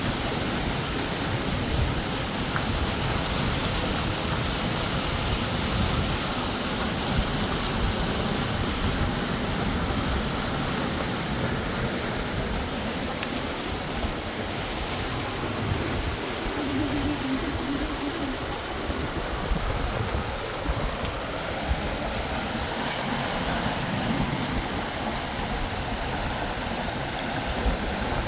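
River water flowing, a steady rushing that holds at the same level throughout.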